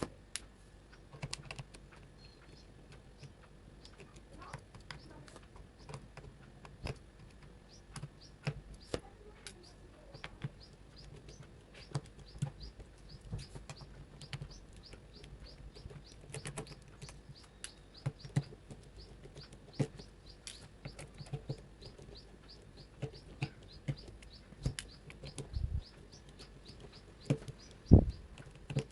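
Precision screwdriver backing out the tiny Phillips screws of a smartphone's back frame: a long run of small clicks and ticks as the bit turns and catches, with occasional light taps as screws are set down. A louder knock about a second before the end.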